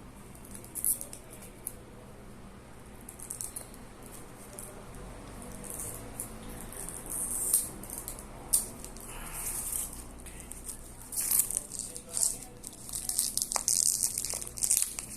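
Plastic shrink wrap on a CD earbook crinkling and rustling in short bursts as it is handled and pulled off, busier in the second half, with a few sharp clicks.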